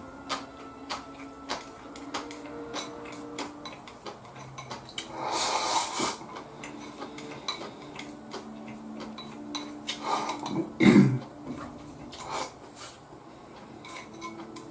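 Chopsticks clicking and scraping against a bowl held up to the mouth while eating, with two louder, longer sounds about five and eleven seconds in.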